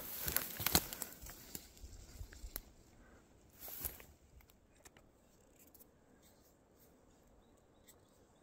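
Footsteps rustling and crackling through dry grass and sticks, busiest in the first second and again briefly a little before four seconds in, then faint.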